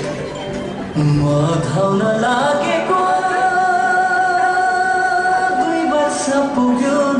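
Nepali song playing: a voice sings a melody with long, drawn-out notes over instrumental accompaniment.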